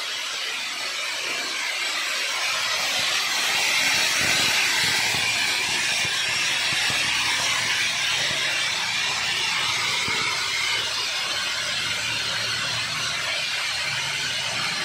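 Seeds pouring down the galvanised sheet-steel spiral flights of a spiral seed grader, a steady hiss and rattle of grain on thin metal that grows a little louder about two seconds in.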